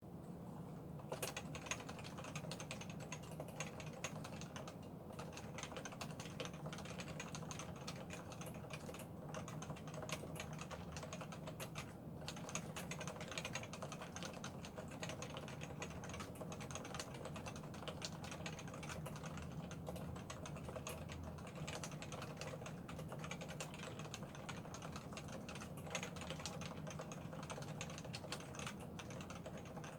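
Continuous typing on a Topre Realforce 87U tenkeyless keyboard with 45 g electrostatic capacitive switches, unlubed sliders, Krytox 205-lubed stabilizers and dye-sublimated PBT keycaps: a dense, steady run of keystrokes starting about a second in.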